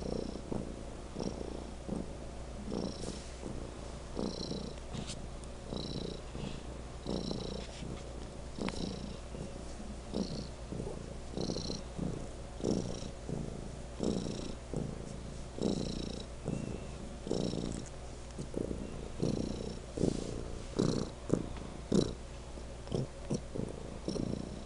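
Domestic cat purring loudly, close to the microphone, the purr swelling and easing with each breath about every second and a half.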